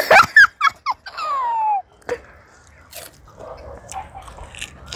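A few short high squeaks, then one long squeal falling in pitch, followed by quieter chewing and crunching of crisp pani puri.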